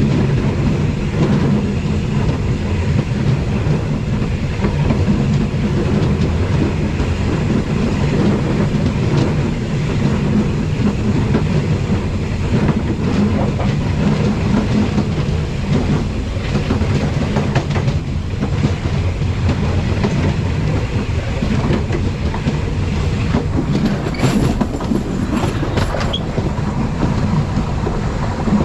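Diesel passenger train running along the track, heard from the driver's cab: a steady low engine and wheel rumble with the clickety-clack of the rails. Near the end comes a short cluster of sharp clicks.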